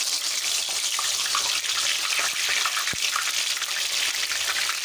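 Freshly added chopped okra deep-frying in hot oil: a steady, dense sizzling crackle.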